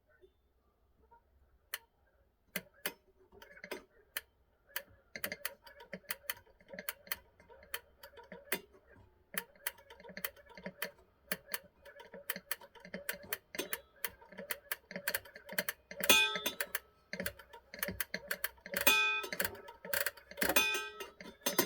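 Small metal clock parts, screws and hand tools clicking and tapping at an irregular pace on a hard surface as a 1970s Seiko day-date clock is taken apart, getting busier, with louder ringing metallic clinks near the end.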